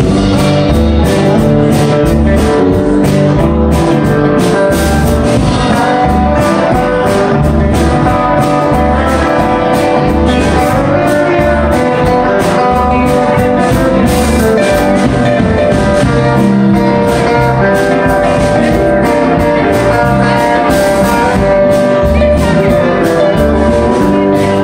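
Live band playing a song: electric and acoustic guitars, bass guitar and drum kit, with a steady beat.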